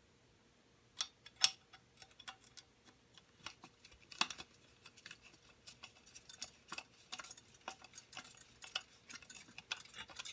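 Light metal clicks and taps, irregular and many, as a water heater burner assembly is handled and attached to its mounting brackets. Two louder clicks come about a second and a half in and just after four seconds.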